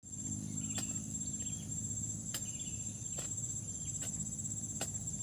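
Insects chirring in a steady, continuous high tone over a cassava field, with a low steady hum underneath and a few faint, irregular clicks.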